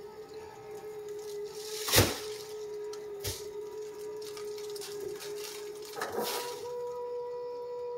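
Petkit Pura X automatic litter box's drum motor running with a steady hum as the drum rotates through its cleaning cycle. There are two sharp clicks about two and three seconds in, and near the end the hum shifts to a slightly higher pitch.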